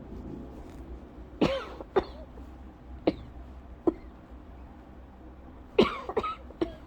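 A young woman's lingering cough from a scratchy, irritated throat that has stayed on over a month after an illness, a milder fit rather than her asthma cough. Single coughs come spaced out over the first few seconds, then a quick run of four near the end.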